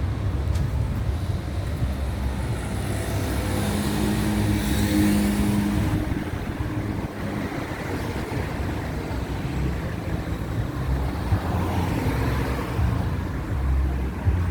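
Road traffic on a city street: cars running and passing, with one vehicle going by close about four to six seconds in with a held engine drone.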